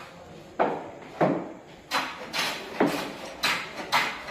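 A run of about seven sharp knocks, roughly two a second, each ringing out briefly.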